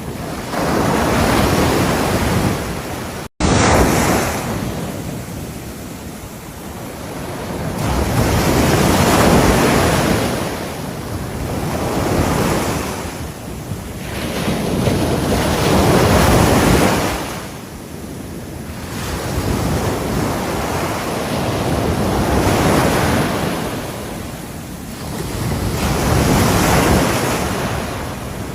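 Ocean waves breaking on a shore, the surf swelling and fading in surges about every four seconds. The sound cuts out completely for an instant about three seconds in.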